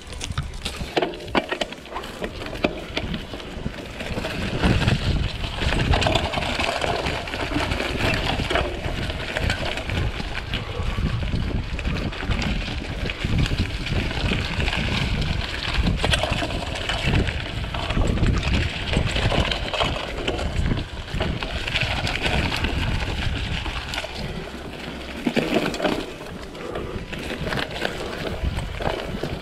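Mountain bike being ridden along a dirt trail: wind buffeting the microphone in surging gusts, tyres running over dirt, and irregular rattles and knocks from the bike.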